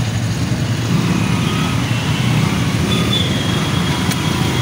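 Auto-rickshaw engine running with a steady low chugging rumble, heard from inside the cab, with street traffic around it.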